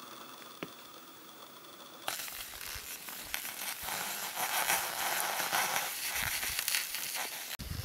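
Cross-country skis and a pulk sled sliding over snow: a rough, continuous scraping hiss that starts suddenly about two seconds in and grows louder, after a faint hiss with a single click.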